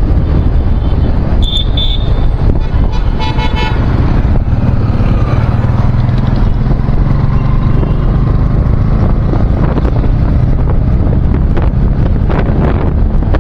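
Steady road and engine noise while riding a motorbike on a highway. Vehicle horns toot briefly about one and a half seconds in and again about three seconds in.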